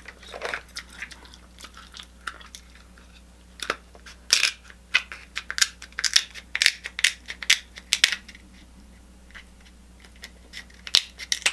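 Seafood shells being cracked and snapped apart by hand: a string of irregular sharp cracks and clicks, busiest in the middle, with a quieter stretch near the end.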